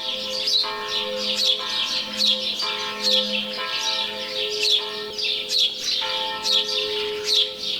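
Small woodland birds chirping, a quick falling chirp about twice a second, over sustained ringing church-bell tones that change pitch about once a second.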